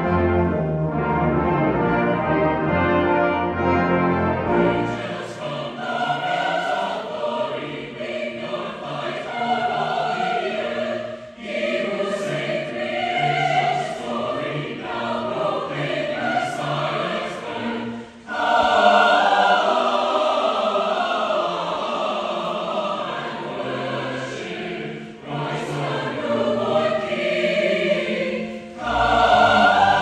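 A large mixed choir singing a festive Christmas piece, accompanied by a brass band, with brief pauses between phrases.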